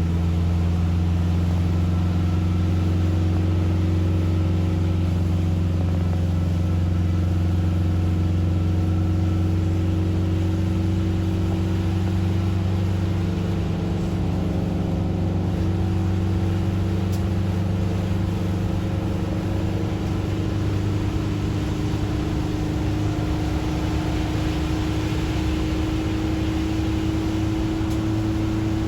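Steady cabin noise of a vehicle driving on a rain-soaked road: a low engine and drivetrain hum over the hiss of tyres and rain, its pitch creeping slightly upward in the second half.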